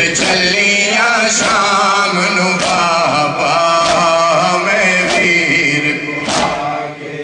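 A man chanting a noha, a Shia mourning lament in Punjabi, in a long, wavering melody. Sharp slaps come in about every second or so.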